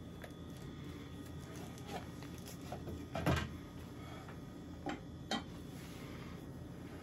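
Handling noises: a dull thump about three seconds in, then two short clicks a couple of seconds later, over a quiet room.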